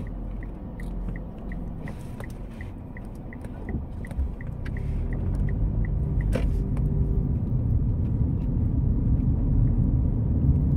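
Car engine and road rumble heard from inside the cabin, growing louder about halfway through as the car picks up speed. For the first half, a turn-signal indicator ticks evenly, about three times a second. A single sharp click comes about six seconds in.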